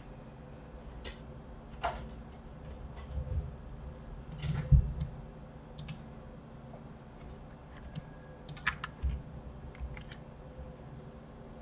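Scattered computer keyboard key presses and mouse clicks at irregular intervals, with one dull low thump a little under halfway through.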